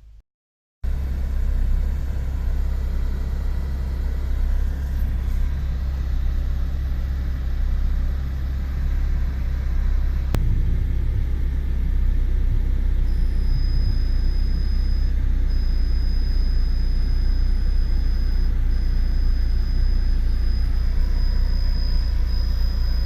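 Fiat Uno Turbo's air-conditioning fan running with a steady low rumble and rushing air. About halfway through a thin, high ringing tone comes in and holds, dropping out briefly twice. This ringing is the noise the owner first feared was worn motor brushes and traced to the washer on the fan shaft vibrating.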